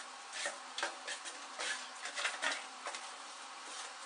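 Irregular rustling and scraping of packaging as a plastic-wrapped mini washing machine is handled on its foam base: a dozen or so short scuffs through the first three seconds over a steady hiss, then quieter.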